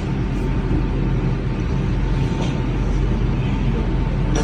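Steady low machine hum with an even background noise and a faint high whine, unchanged throughout; no joint crack or impact stands out.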